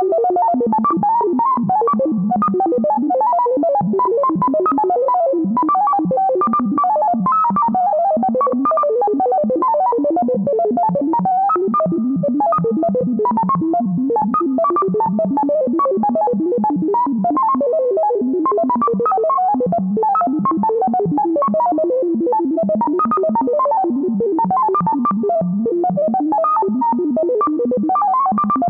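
Vintage sci-fi computer sound effect: a fast, unbroken stream of electronic bleeps jumping at random between high and low pitches, at a steady loudness.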